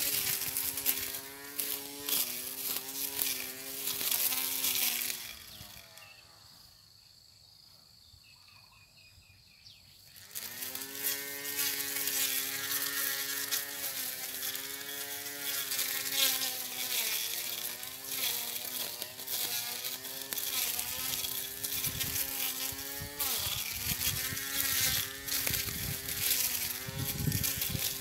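Portable electric lawn mower's motor running with a steady pitched whine that wavers as it cuts. About five seconds in it winds down and stops, then starts up again about ten seconds in and keeps running.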